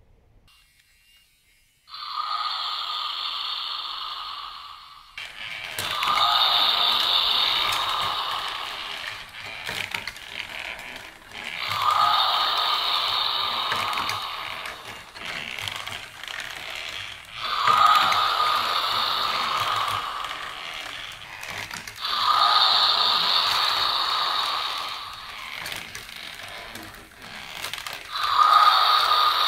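TOMY Zoids RZ-064 Gojulas Giga toy in pursuit mode, its built-in speaker playing a recorded roar again and again, six times, each lasting a few seconds and coming about every five to six seconds. Between the roars the motor and gears whir as the head turns and the jaw works. The first roar starts about two seconds in.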